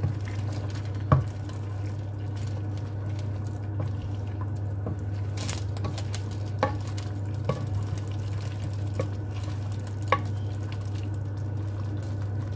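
Wooden spoon stirring mixed vegetable stew in a square pan, with scattered knocks of the spoon against the pan, the loudest about a second in, over a steady low hum.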